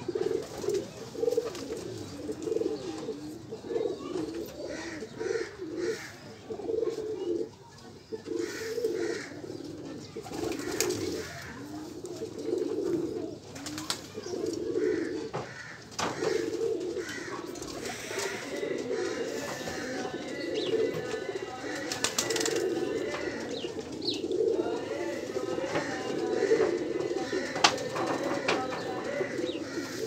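Several domestic pigeons cooing, their low coos overlapping almost without a break, with a few sharp clicks along the way.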